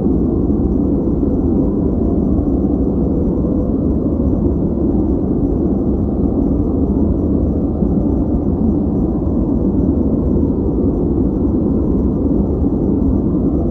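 Steady, deep, muffled noise from a white-noise sleep-and-focus track, with no change in level or pitch.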